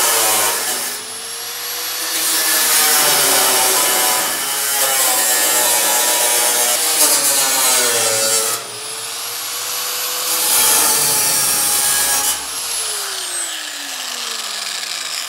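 Electric angle grinder with a thin cutoff wheel slicing through sheet-metal floorboard, cutting in several long passes with the motor's whine rising and dipping between them. A little past twelve seconds in it is switched off and winds down in a falling whine.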